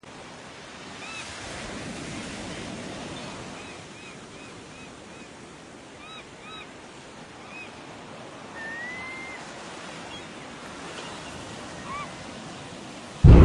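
Steady surf-and-wind noise with a run of short high chirps and one rising glide, then a sudden loud blast sets in at the very end.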